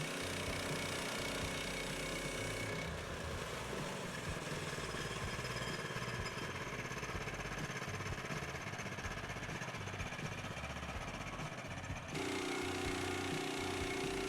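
Engine of a portable band sawmill running steadily. Its sound changes abruptly about three seconds in and again near the end.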